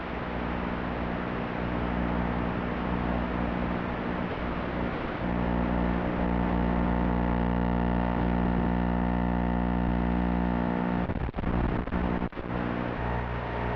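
Small racing quadcopter's electric motors and propellers running as a steady hum of several even tones. Near the end it briefly dips out several times as the craft comes down close to the ground.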